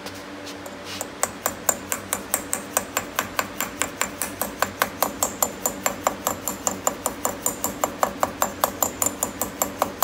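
Rubber mallet tapping a metal grease cap onto a front disc brake rotor's hub, seating the cap: quick, even light taps at about four a second, starting about a second in.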